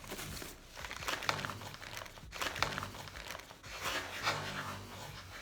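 Snack packaging crinkling and rustling in irregular bursts as it is handled.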